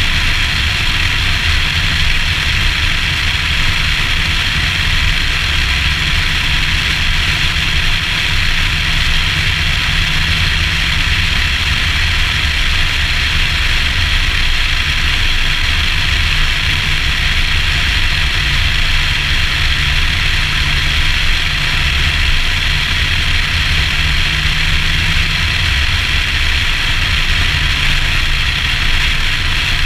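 Nissan Skyline ER34 driving at a steady cruise, heard from a camera mounted on the outside of the car: a steady rush of wind and road noise over a low engine drone.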